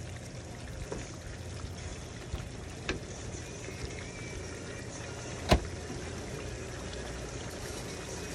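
Thick chicken curry sauce simmering and bubbling in a frying pan, with a few sharp pops, the loudest about halfway through, over a steady low hum.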